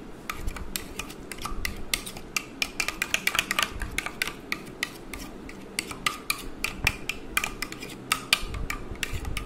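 Metal spoon stirring a thick mayonnaise and chilli sauce mix in a plastic bowl: quick, irregular clicks and scrapes of the spoon against the bowl, several a second.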